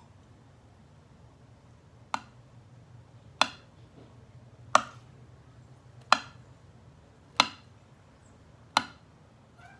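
A metal fork clinking against a clear storage container as it is dipped into and lifted out of slime: six sharp clinks, evenly spaced about one and a third seconds apart.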